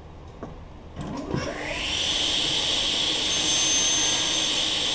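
Table saw motor switched on about a second in, whining up to speed in about a second and then running steadily with a hiss and a steady hum.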